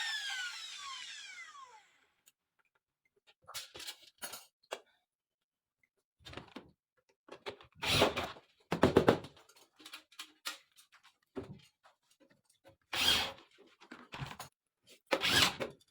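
A small electric motor's whine falling in pitch as it spins down, fading out about two seconds in. Then scattered knocks and clunks of parts being handled, with silent gaps between.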